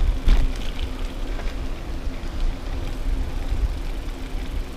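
Wind buffeting the microphone of a moving bicycle, heard as a gusty low rumble with a faint steady hum beneath it and a few light clicks near the start.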